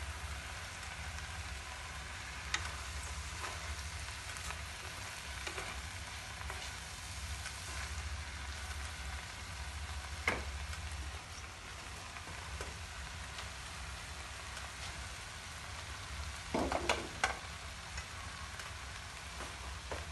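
Egg noodles and vegetables sizzling in a frying pan as they are tossed with wooden chopsticks, with a steady low hum underneath. Now and then the chopsticks click against the pan: one sharp click about halfway and a short run of knocks near the end.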